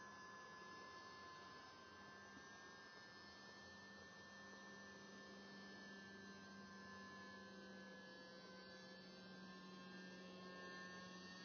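Faint, steady whine of a distant RC model seaplane's motor and propeller, its pitch edging slightly upward near the end.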